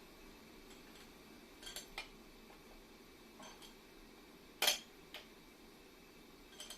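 Small metal parts clinking and tapping as they are handled: a handful of short, light clinks, the loudest about two-thirds of the way in, over a faint steady room hum.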